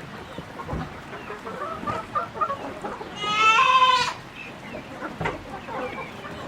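A flock of chickens clucking, with one loud drawn-out call lasting about a second, a little past the middle, falling slightly in pitch.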